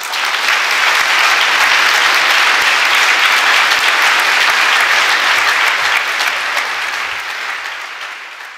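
A large seated audience applauding steadily, the clapping thinning out and fading near the end.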